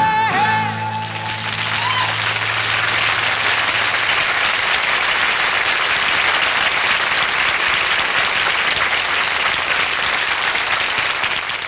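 A rock band's last held notes die away in the first second, then a studio audience applauds steadily, beginning to fade out near the end.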